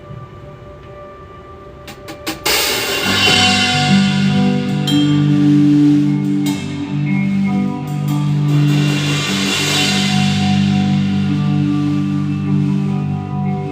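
A live band starts a song: after a few quick clicks about two seconds in, drum kit with a cymbal crash, bass and sustained chords come in together and keep playing.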